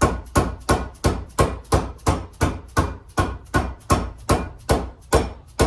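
Rubber dead blow mallet tapping steadily, about three even taps a second, driving a new outer wheel-bearing seal into its seat.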